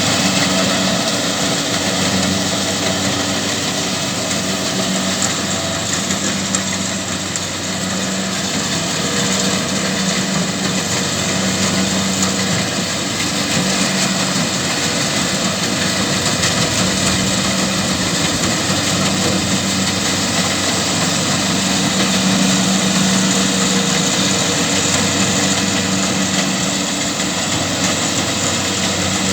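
Kubota DC70Plus rice combine harvester's diesel engine running steadily while harvesting, its hum swelling and easing slightly over a dense mechanical din.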